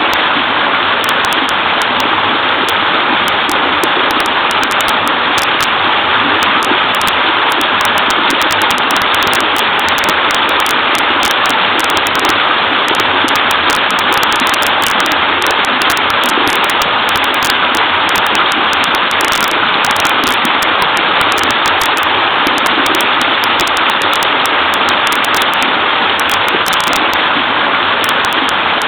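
Small waterfall in a creek: a steady rush of babbling, splashing water that holds an even level throughout.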